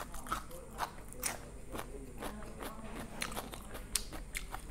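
Chewing a mouthful of raw cucumber with steamed egg: irregular crisp crunches, several a second.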